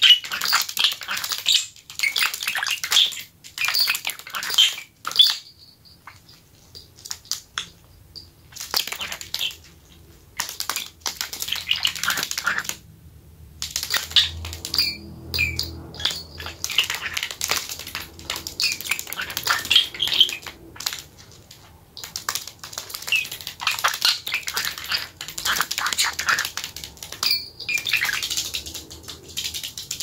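A budgerigar's feet tapping and scratching on paper maps in runs of quick steps, with small metal bells clinking and jingling now and then; the steps come in bursts with short pauses between.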